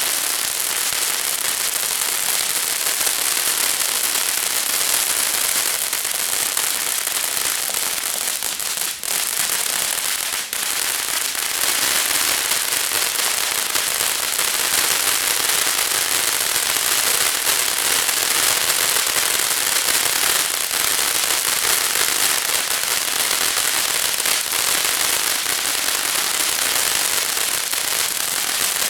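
Consumer fireworks going off together as a grand finale: a dense, unbroken crackling and hissing that stays loud throughout.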